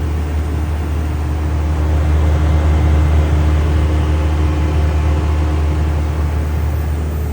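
Chiller unit of a Mazak VCN 510C-HS machining center running with a steady low hum.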